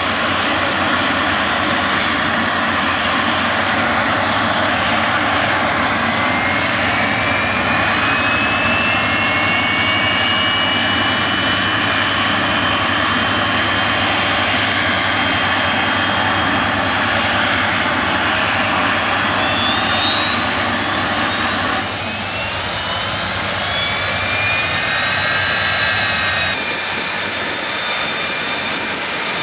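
Jet aircraft flying a display pass: a loud, steady engine rush with a whine that rises in pitch, then rises again later in the pass.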